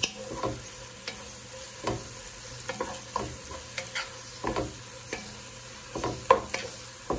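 Wooden spoon stirring sliced onions in a nonstick pot, its short scrapes and taps against the pan coming irregularly, about once or twice a second, over a light steady sizzle of the onions sautéing.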